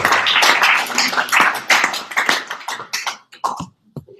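Audience applause, thinning out to a few scattered claps about two seconds in and dying away shortly before the end.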